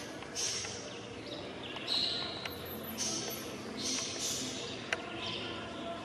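Common waxbills calling, short high chirps repeated every half second to a second. A single sharp click comes about five seconds in.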